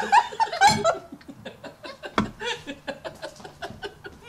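Several people laughing, stifled behind their hands, in short repeated bursts after a louder outburst at the start. A short, sharp burst comes about two seconds in.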